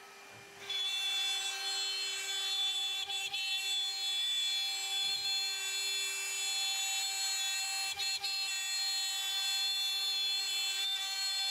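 AltMill CNC router's spindle cutting plywood: a steady whine of held tones over the hiss of the cut, starting about half a second in, with a few faint knocks.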